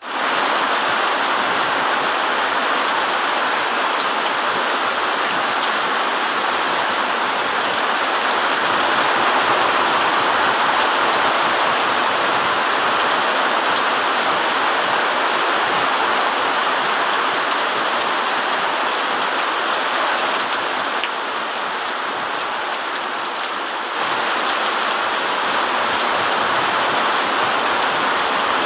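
Heavy rain falling steadily on a tent as an even, dense hiss, dipping slightly for a few seconds about two-thirds of the way through.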